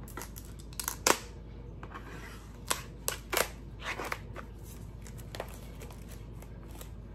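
Packaging being unwrapped and opened by hand: scattered sharp crinkles, clicks and snaps. The loudest come about a second in, with another cluster a little past the middle.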